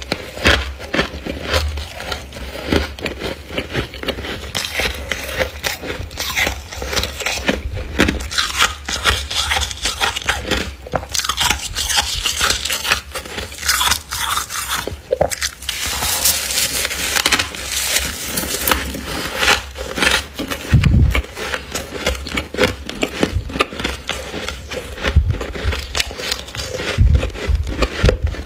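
Deep, thick freezer frost being scraped and crunched: a dense, irregular run of crisp crackles and crunches with a few short pauses.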